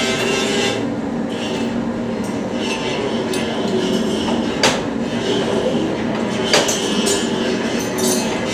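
Steady running of workshop machinery, with a few held tones over a noisy rumble, and three sharp metallic clinks in the second half.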